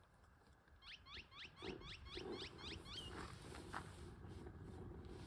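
A bird calling: a quick run of about nine descending chirps at roughly four a second, ending in a short higher note, with a faint steady hiss behind it.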